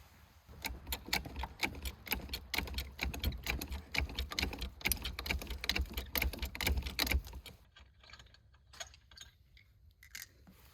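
Quick run of sharp clicks from hand tools working on a car wheel during a tire change. The clicks are dense for about seven seconds, then thin out to a few faint ones near the end.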